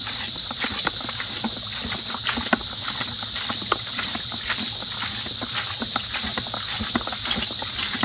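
Homemade bucket washing machine being worked by hand: a drilled plunger agitator pushed up and down through the lid of a 5-gallon plastic bucket, giving irregular knocks and clacks as it churns the clothes in the water. Insects chirr steadily underneath.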